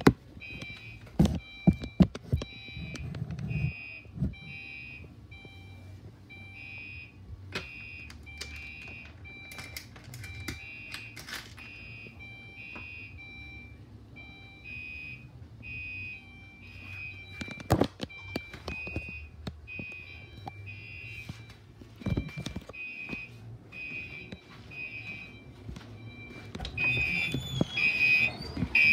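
Gentex Commander 3 fire alarm sounding its chime tone: a high tone pulsing on and off in a repeating pattern, louder near the end. Several sharp knocks come in the first few seconds and a few more later on.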